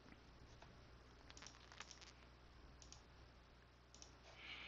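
Near silence: room tone with a few faint computer clicks, scattered through the middle and later part.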